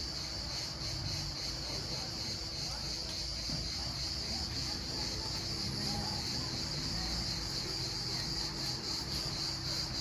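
Steady, high-pitched chorus of insects trilling without a break, over a low rumble.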